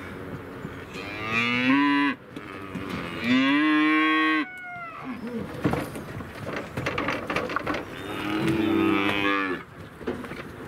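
Young cattle mooing: three long, loud calls, with a clatter of short knocks between the second and third.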